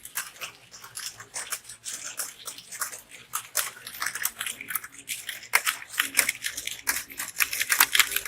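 Rapid typing on computer keyboards: a dense, irregular stream of key clicks that grows busier and louder about five seconds in.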